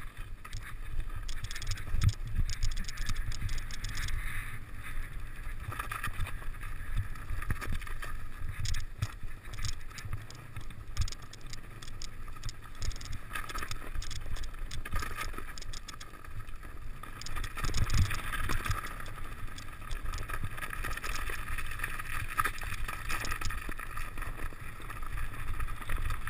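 Mountain bike descending a snow-covered trail: a steady wind rumble on the helmet-camera microphone, with tyres crunching through snow and many short knocks and rattles from the bike over bumps.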